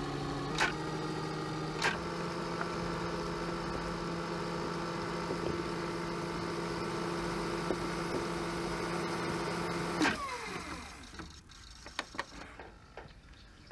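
VCR fast-forwarding a VHS tape: a steady motor whir with sharp mechanism clicks in the first two seconds. About ten seconds in, a click and the whir winds down, falling in pitch as the transport stops.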